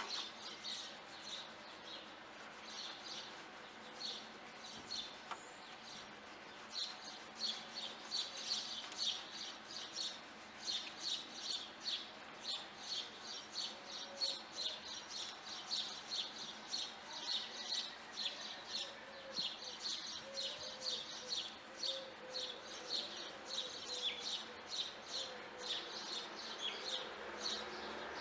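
Detailing brush scrubbing the foam-covered underside of a car bonnet in short, quick strokes, about three a second.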